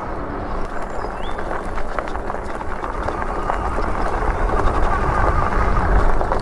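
Riding noise on a Super73 fat-tyre e-bike: wind rushing over the microphone and tyre rumble, with scattered small rattles, getting louder toward the end.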